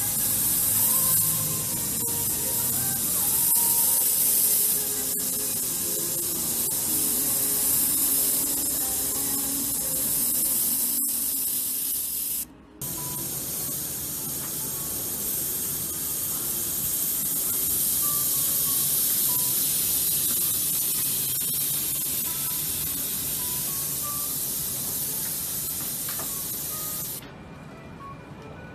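Airbrush hissing steadily as it sprays paint, with soft music underneath. The hiss breaks off for a moment about twelve seconds in and stops near the end, leaving only the music.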